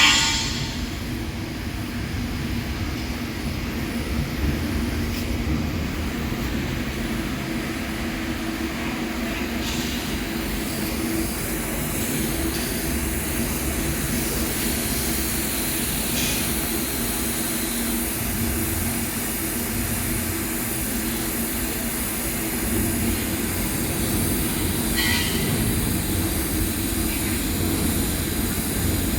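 Steady hum and hiss of a TIG welding set running while a filling pass is laid on stainless steel.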